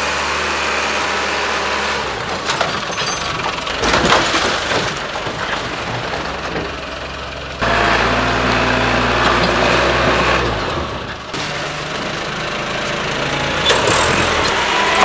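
Telescopic handler's engine running, revving up sharply for about three seconds about halfway through, with cracking and crunching noises throughout and a sharp crack about four seconds in as the machine works over the wrecked car's body.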